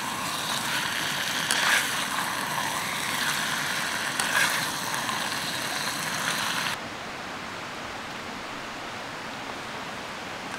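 Chicken sizzling in a frying pan over a gas camping stove: a dense hissing crackle with a few sharper pops. It cuts off suddenly about seven seconds in, leaving a quieter steady hiss.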